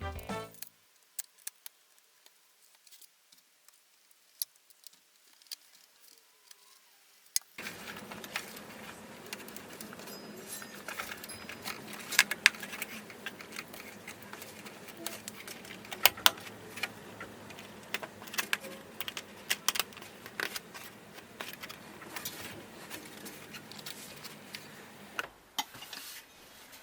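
Scattered sharp clicks and light rattles of small hard parts being handled. They sit over a steady background hiss that starts about seven and a half seconds in and falls away near the end.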